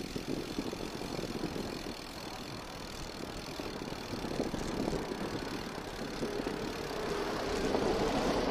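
Wind rushing over a phone microphone and road rumble from a bicycle rolling slowly down a paved street, with a car engine running close by and growing louder in the last couple of seconds.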